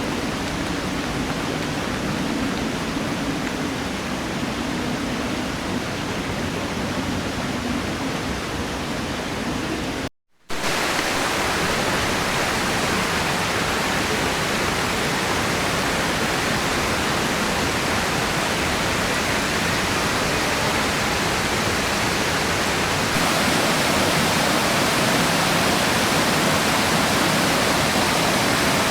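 Steady rush of a mountain stream's falling water. It cuts out for a moment about ten seconds in and comes back louder.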